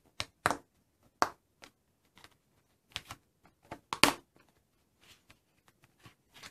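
Junior Polydron polyurethane construction pieces being pressed and snapped together by hand: a string of irregular sharp plastic clicks and clacks, the loudest about four seconds in.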